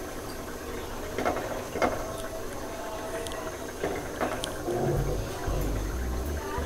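Metal ladle scraping and tapping in a nonstick frying pan as white batter is spread in circles, with a few short knocks and some dull bumps near the end.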